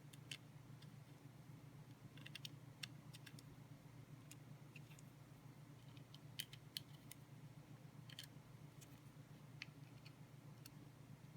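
Faint, irregular small clicks and ticks of metal knife parts and screws being handled while an OTF knife's aluminium handle is put back together, over a steady low hum.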